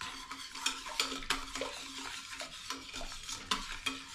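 Wire whisk stirring a thick liquid mix of cream of chicken soup, water and gravy mix in a slow cooker's stoneware crock, the wires scraping and clicking against the pot several times a second.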